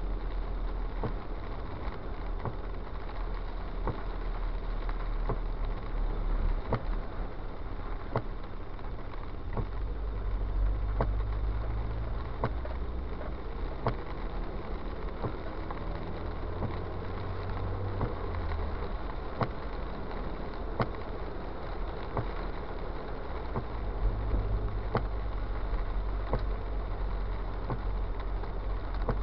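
Car driving on a rain-wet road, heard from inside the cabin: a steady low rumble of engine and tyres with a wet road hiss, peppered with scattered light ticks. The rumble grows louder about a third of the way in and again near the end.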